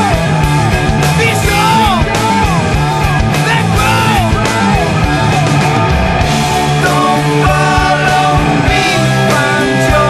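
Rock song with electric guitar, bass and drums. A melody line slides up and down in repeated arcs during the first half, and gives way to held, steady notes about seven seconds in.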